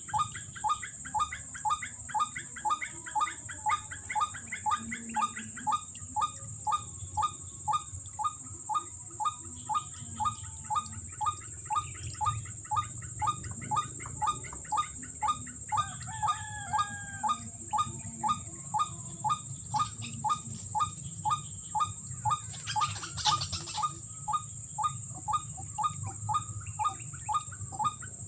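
White-breasted waterhen (ruak-ruak) call repeated steadily, about two notes a second, over a steady high-pitched insect drone.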